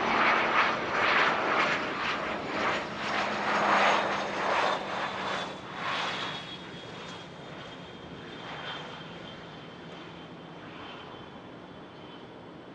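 Airplane engine passing: a loud rushing sound that surges and pulses, then fades away after about six seconds, with a steady low hum and a faint high whine both slowly dropping in pitch as it goes.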